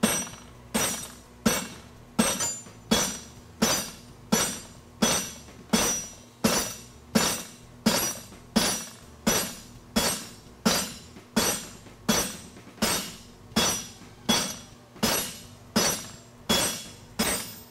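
Hand hammer striking a red-hot square steel bar on an anvil in a steady rhythm, about three blows every two seconds, each with a bright metallic ring: half blows forging the heel of a horseshoe.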